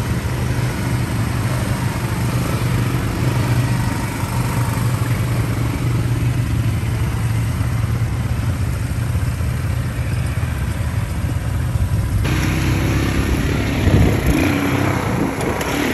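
ATV (quad bike) engine running steadily. About twelve seconds in the sound changes abruptly.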